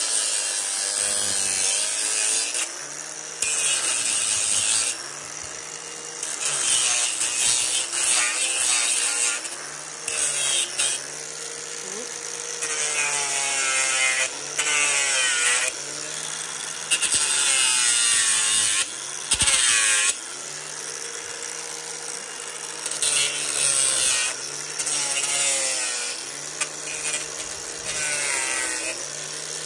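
Angle grinder with an abrasive disc grinding down a mini mule's hoof, in repeated passes of one to a few seconds each. Each pass adds a rasping hiss as the disc bites the hoof, and the motor's whine dips in pitch under the load, then recovers between passes.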